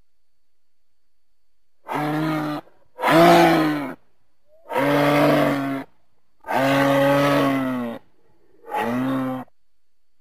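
Moose calling five times: pitched calls of about half a second to a second and a half each, separated by silent gaps, each starting and stopping abruptly.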